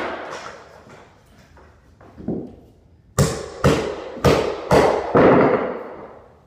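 Hammer blows nailing carpet tack strip to the floor: a lighter knock about two seconds in, then four quick strikes about half a second apart, followed by a longer noise that fades away.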